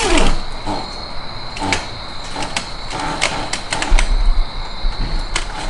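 Irregular metal clicks and clinks of hand tools and parts being worked in a car's engine bay, about eight in all, spaced unevenly, with a faint steady high whine underneath.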